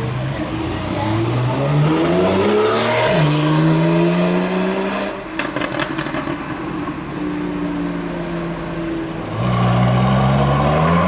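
Car engines accelerating hard. The engine note climbs, drops sharply at an upshift about three seconds in, and climbs again. It eases off with brief crackling in the middle, and then another car pulls away with a rising note near the end.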